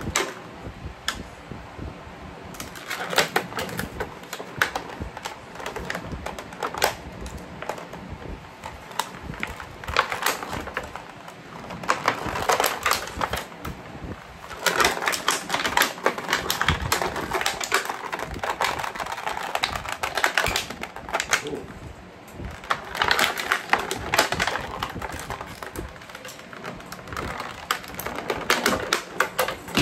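A clear plastic bag crinkling as it is handled and cut open with scissors. The sound is a run of sharp crackles and clicks that comes in several long loud stretches.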